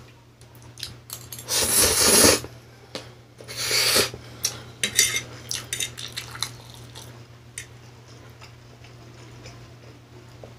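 A metal fork clinks and scrapes against a plate while twirling instant pancit canton noodles. There are two loud slurping bursts, about two and four seconds in, then scattered lighter clicks of the fork.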